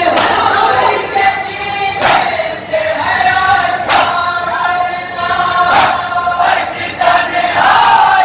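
A group of men chanting a Shia nauha (lament) together in long held notes. Sharp hand-on-chest matam strikes land roughly every two seconds.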